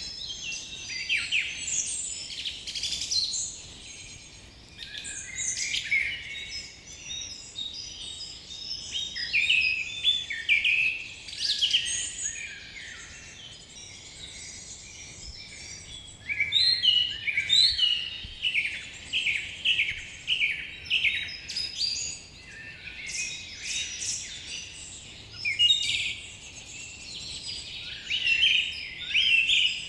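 Several small birds chirping together: rapid, overlapping high chirps that come in runs and lulls.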